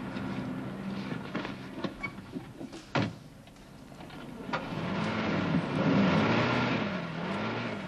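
A car door shuts with a sharp knock about three seconds in, then the big American car's engine starts and runs, its pitch rising and falling as it is revved.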